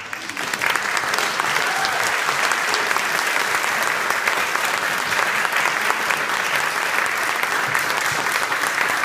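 Audience applause, breaking out suddenly into dense, steady clapping.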